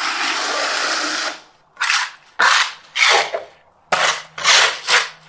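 Steel trowel scraping cement-based block adhesive across the top of aerated concrete blocks: one long scrape, then about six short strokes.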